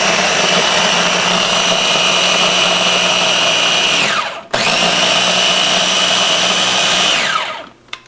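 Electric food chopper motor grinding toasted pecans and vanilla wafers into fine crumbs. It runs steadily for about four seconds, winds down with a falling whine, starts again right away and runs for about three more seconds before winding down again near the end.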